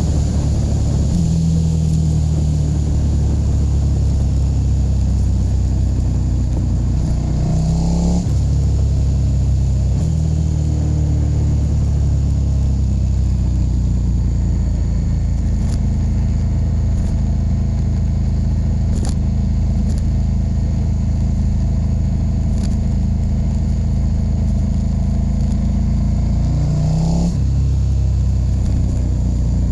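KTM 1290 Super Duke R's V-twin engine running steadily under way. The pitch rises as the engine revs and then drops suddenly, like a gear change, about eight seconds in and again near the end.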